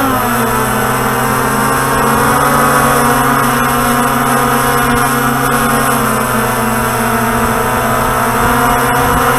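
Walkera Tali H500 hexacopter's six electric motors and propellers running in flight, heard from the craft's onboard camera as a loud, steady hum of several pitches. The pitch wavers briefly at the start, then holds steady.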